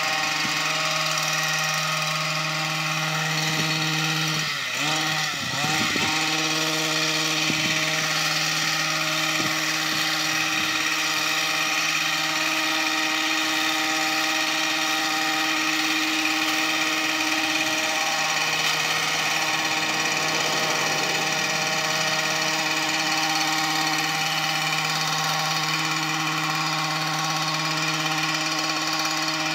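Small gas engine of a handheld yard tool running steadily at high throttle. About five seconds in its pitch dips and comes back up as the throttle is eased off and opened again.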